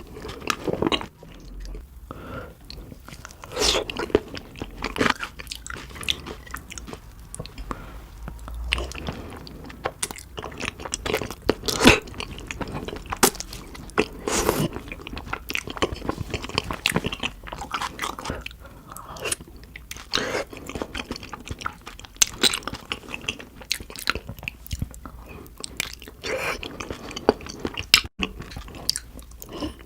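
Close-miked eating sounds of spicy beef feet being bitten and chewed: irregular wet chewing with sharp clicks and smacks that come at uneven intervals.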